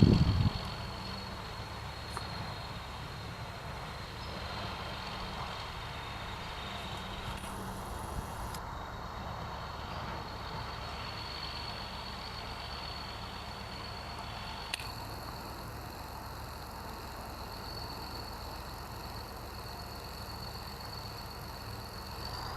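T-150K tractor's diesel engine running steadily at low revs, an even low hum with a thin steady high whine over it. A brief loud noise cuts off about half a second in.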